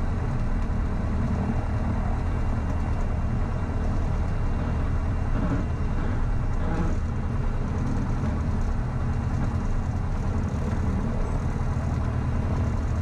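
Lycoming IO-360-M1A four-cylinder engine and propeller of a 2006 Diamond DA40 XLT, running steadily, heard from inside the cockpit.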